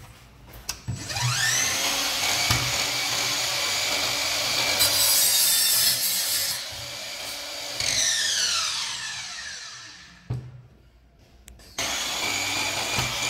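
Einhell TE-MS 18/210 Li cordless 18 V miter saw. About a second in the motor spins up with a rising whine, and the blade cuts through a wooden strip. The motor is then released and winds down with a falling whine, and near the end the saw starts up again.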